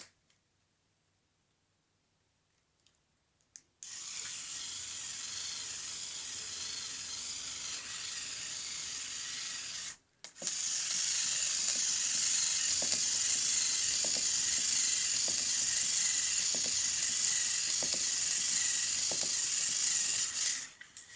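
Little Live Pets toy turtle's small battery motor and plastic gears whirring as its flippers move. The whirr starts about four seconds in, stops for a moment about ten seconds in, then runs again louder.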